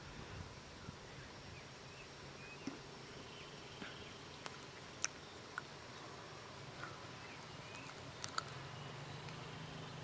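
Faint outdoor ambience: a steady high-pitched insect drone, with scattered short chirps and a few sharp clicks, the sharpest about five seconds in and a close pair a little after eight seconds. A low hum comes in near the end.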